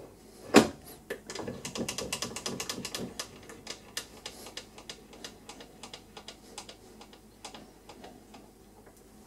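Metal parts of a small milling machine's vise setup being handled: a sharp metallic knock, then a run of quick, irregular metal clicks that is densest early and thins out over the next few seconds.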